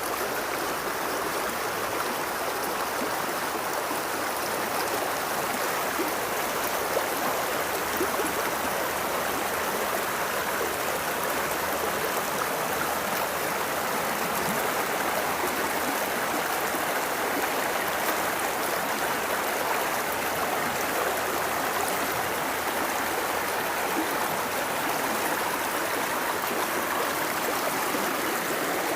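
River running fast and full over its bed: a steady rush of flowing water, swollen after a night of rain.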